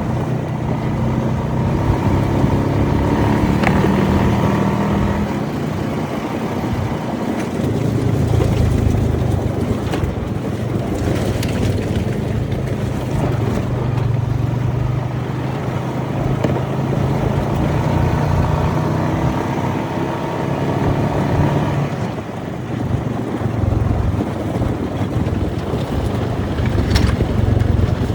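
Off-road vehicle engine running while driving, its pitch climbing twice as it speeds up.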